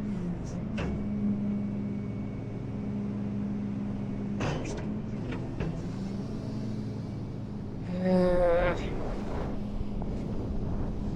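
Tow truck engine idling steadily, with wind on the microphone. A few sharp clicks come about four and a half seconds in, and a brief loud call, likely a shouted voice, about eight seconds in.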